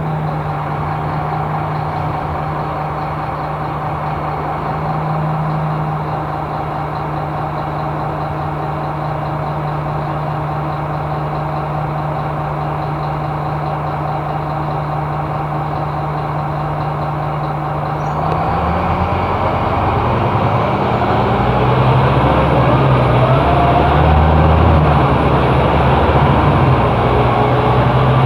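Scania K270IB bus engine with ZF automatic gearbox running at a steady note, then about two thirds of the way through the note changes and the bus pulls away, engine pitch rising in steps and getting louder. A faint high whistle rises over it near the end.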